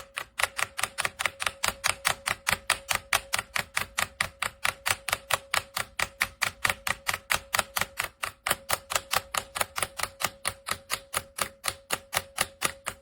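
Mechanical keyboard key with a Keychron brown switch tapped over and over in a fast, even rhythm, about four to five clicks a second, each with a slight ring. The key is the down arrow, being tested because it registers only intermittently.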